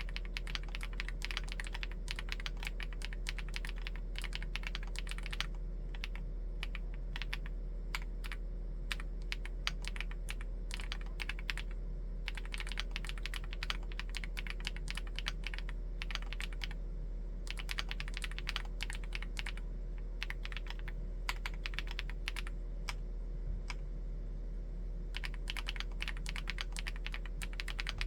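Typing on a Chilkey ND75 full-aluminium mechanical keyboard with Gateron EF switches: steady keystrokes, in fast runs that thin out to slower typing a few times.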